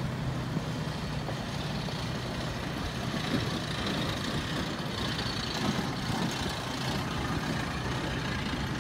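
Pickup trucks driving past one after another on a gravel road: a steady mix of engines running and tyres on the gravel.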